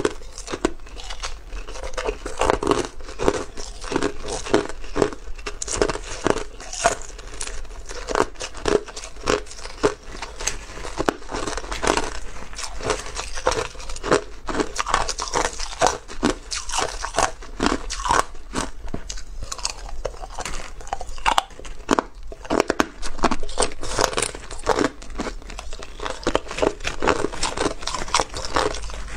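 Crushed clear ice being bitten and chewed close to the microphone: a dense, irregular run of sharp, crisp crunches.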